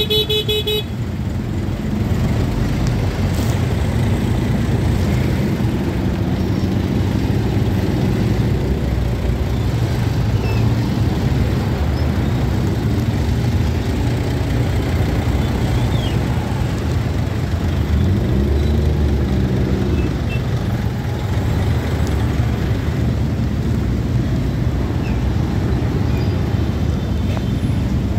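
Steady low rumble of slow, jammed traffic, with truck and motorcycle engines running close by; a heavy engine swells louder about two-thirds of the way through. A short horn toot sounds right at the start.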